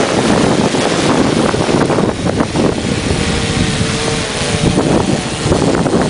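Mariner waterproof quadcopter's propellers and motors whirring as it hovers close by and then climbs away, with strong wind buffeting the microphone.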